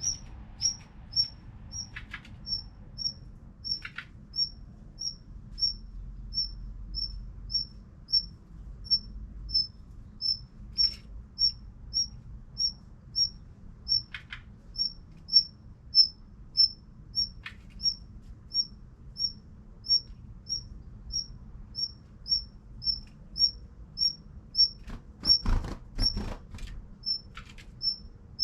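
Daurian redstart calling a single short, high, thin note over and over at an even pace, about one and a half times a second. A few faint knocks fall between the calls, several of them close together near the end.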